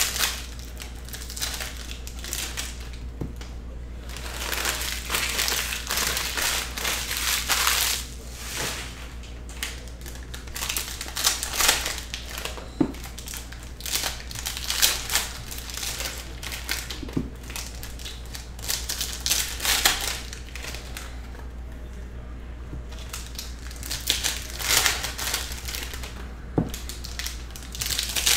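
Foil trading-card packs being crinkled and torn open by hand, in irregular bursts of crinkling with a few sharp clicks, over a steady low hum.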